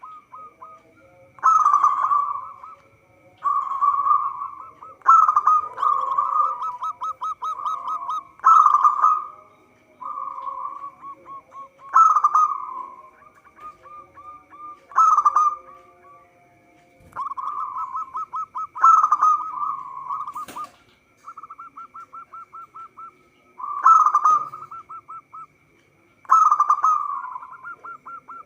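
Zebra doves (perkutut) cooing: phrase after phrase of rapid, stuttering coos, each about a second long, repeated every couple of seconds.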